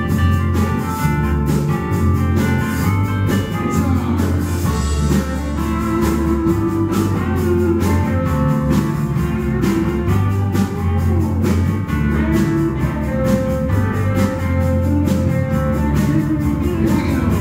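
Live blues band playing: electric guitar, bass guitar, drum kit and keyboard.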